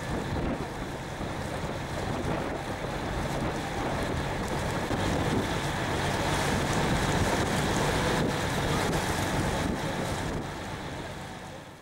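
Wind buffeting the microphone over the steady hum of a river boat's engine and rushing water, fading out near the end.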